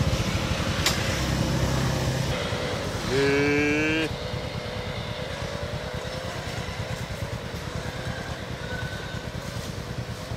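A small engine idling with a low, rapid, steady throb. About three seconds in, a louder pitched tone sounds for about a second.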